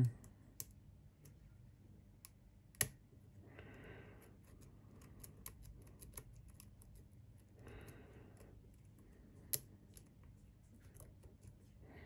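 A steel lock pick tapping and scraping on the pin stacks inside a pin-tumbler lock cylinder under light tension, as pins are felt and set one by one. Small metallic clicks run throughout, with a few louder ones.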